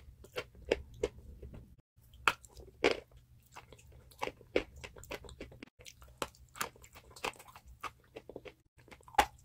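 Close-miked biting and chewing of chalk: irregular dry crunches, a few a second. The sound cuts out briefly three times.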